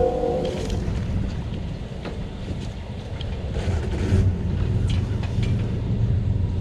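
Boat's outboard motor running steadily with the boat under way, with wind noise on the microphone. A held horn-like chord dies away in the first half second.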